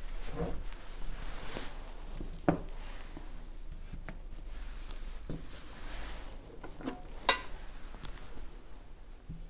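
A few scattered sharp clicks and light taps of small tools and parts being handled on a workbench, the loudest two a few seconds apart, over a low steady hum.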